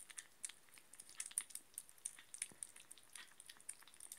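Scottish kittens eating soft pâté from a plate: faint, irregular wet smacking and lapping clicks.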